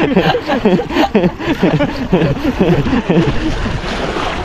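People talking, with voices close together through most of the stretch. Near the end the talk drops away to a steady rushing noise with a low rumble.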